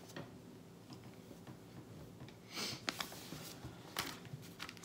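Soft handling of a paper booklet in a quiet room: a brief rustle about two and a half seconds in, and a few light clicks.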